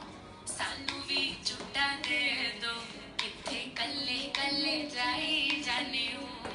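Song with a female lead vocal over a percussive beat, the dance track.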